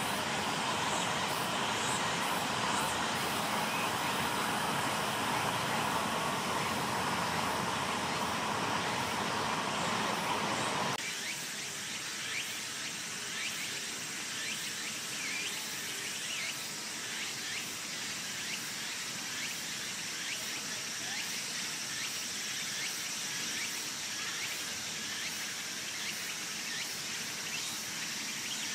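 Steady outdoor background noise that changes abruptly about eleven seconds in to a quieter background of insects chirping, a high hiss with fine rapid ticks.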